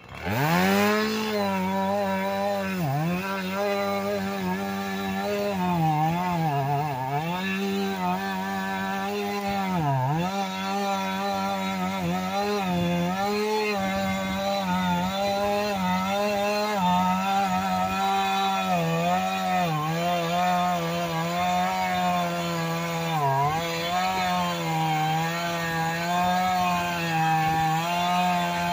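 Husqvarna 450 X-Torq two-stroke chainsaw opening to full throttle at the start and held there while cutting wood, its pitch dipping briefly several times as the chain bites.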